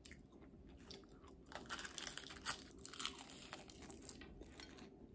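Faint, irregular crunching and chewing of a mouthful of rice with kimchi, heard up close.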